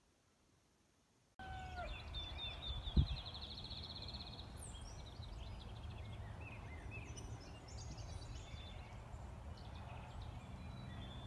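Many small songbirds chirping and calling in the open, including one fast, even trill, over a low steady rumble. A single sharp knock sounds about three seconds in. This follows a second and a half of near silence.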